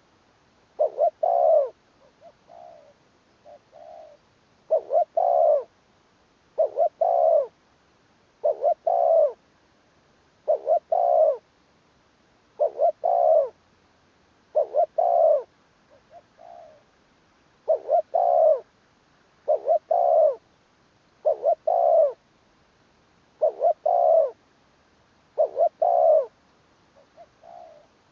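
Spotted dove cooing over and over in steady phrases of two or three notes, one phrase about every two seconds, with softer single coos between some phrases.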